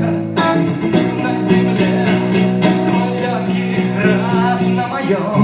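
Live blues song: acoustic guitar with a man singing held, wavering notes.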